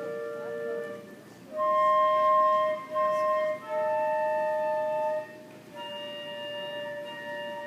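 Two wind instruments playing a slow duet in long held notes, two parts sounding together and moving to new notes every second or so, with a soft dip about a second in.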